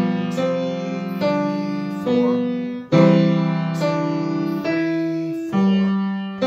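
Samick grand piano played: a simple tune in the middle and lower register, with a new note or chord struck just under once a second and the low notes held under them.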